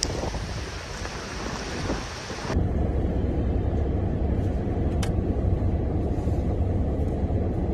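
Winter storm wind: a steady hiss of blowing wind, then an abrupt cut about two and a half seconds in to a steady low rumble.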